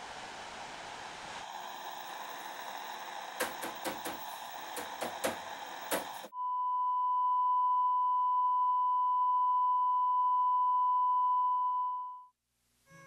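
Television static hissing for about six seconds, with a handful of sharp knocks in its second half as the set is hit on top, then a steady high-pitched test-pattern beep with the colour bars for about six seconds that cuts off abruptly.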